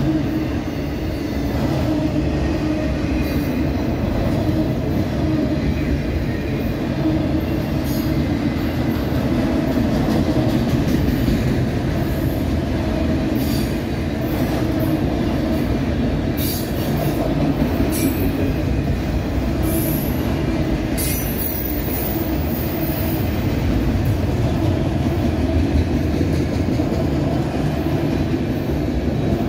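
Freight train of autorack cars rolling past at steady speed: a continuous rumble of steel wheels on rail, with a few short high-pitched wheel squeals.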